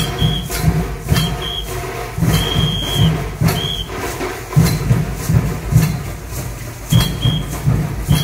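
Lezim jingle-sticks jangling in time with a steady drum beat, as a troupe swings them in unison. Several short whistle blasts, some in pairs, mark the steps.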